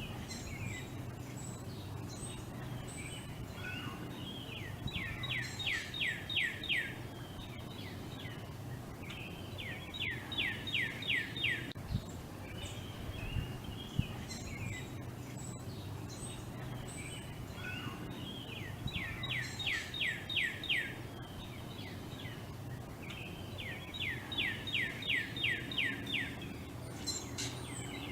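A songbird singing the same phrase of six or seven quick down-slurred whistles four times, spaced about five seconds apart, with softer scattered chirps in between. A steady low hum runs underneath.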